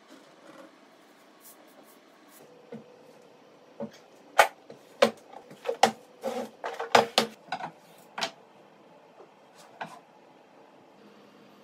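A run of sharp knocks and clatters as heavy objects, a tool case and old flat irons, are set down on an MDF board used as a glue-up weight. The loudest knock comes about four seconds in, and a quick cluster of knocks runs for the next few seconds.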